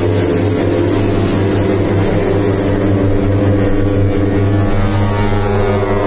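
Dump truck's multi-trumpet air horn, the ship-style "kapal darat" horn, blowing one long, steady blast of several tones sounding together.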